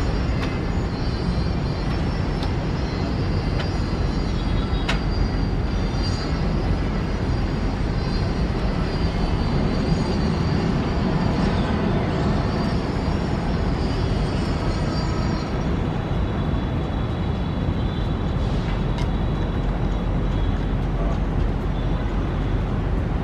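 Narrow-body twin-jet airliner's engines rolling along the runway, heard from a distance as a steady low rumble. A faint high whine rides on top and fades out about two-thirds of the way through.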